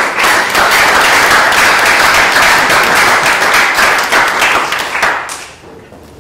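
Audience applause, many hands clapping, dying away about five seconds in.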